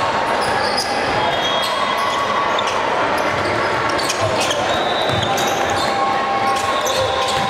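Indoor volleyball rally: several sharp hits of the ball and sneakers squeaking on the hardwood court. Under them runs the steady, echoing chatter of players and spectators in a large gym hall.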